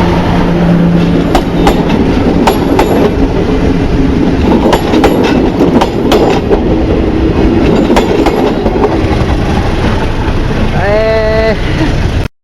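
Philippine National Railways train running at speed, with a loud rumble and wheels clacking over rail joints. A brief horn note sounds near the end, and then the sound cuts off suddenly.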